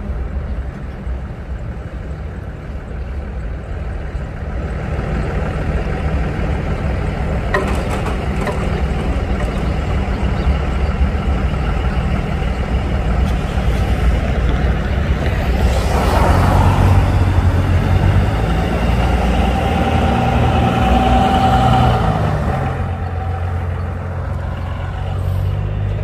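Diesel freight locomotives running with a steady low engine note, consistent with the train's rear helper locomotives passing. The sound builds over the first part, is loudest from a little past halfway until near the end, then eases.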